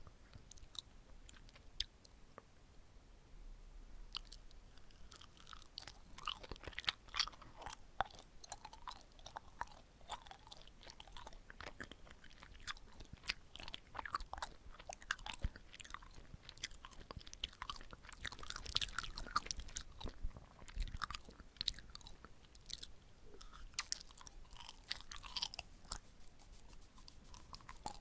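Close-miked chewing of a soft, sticky glutinous rice cake (chapssal-tteok) with sweet red bean filling: irregular wet, sticky mouth clicks and smacks, sparse for the first few seconds and then steady.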